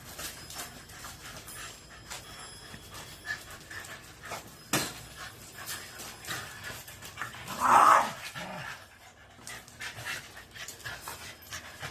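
A Shiba Inu panting in quick, steady breaths, with one louder, short vocal sound from the dog about eight seconds in.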